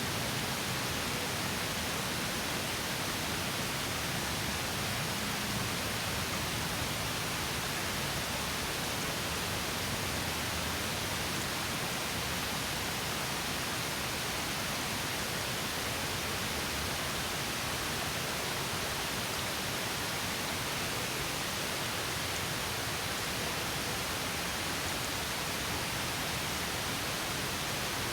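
Small stream pouring over a low drop as a mini waterfall, a steady even rush of running water.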